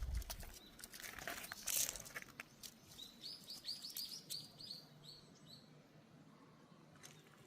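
Rustling and one short, sharp burst of noise in the first two seconds, then a small bird chirping a quick run of about ten high notes, roughly four a second.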